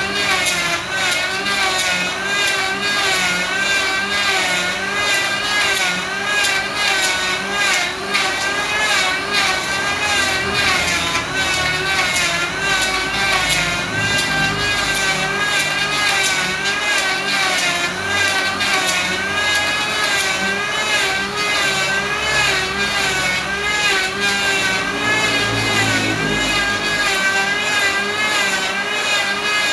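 Electric hand planer running steadily as it is pushed back and forth across a solid trembesi (rain tree) wood slab. Its motor whine wavers up and down in pitch as the cutter bites into the wood.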